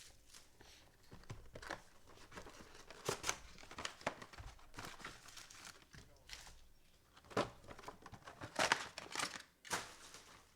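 Trading-card pack wrappers being torn open and crinkled in the hands, with cards rustling: irregular crackles and rustles, a few louder tears about three, seven and nine seconds in.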